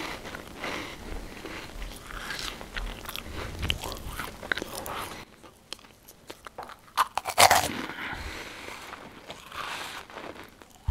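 Crackers being bitten and chewed: irregular dry crunching, quieter for a stretch in the middle, with the loudest crunch about seven and a half seconds in.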